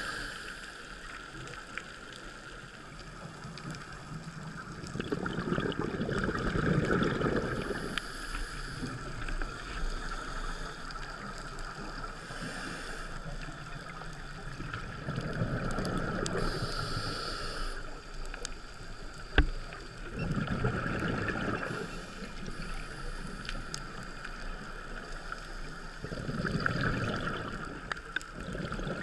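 Heard underwater: a scuba diver's regulator bubbles rushing out in swells every five or six seconds, over a steady hiss, with one sharp click about two-thirds of the way through.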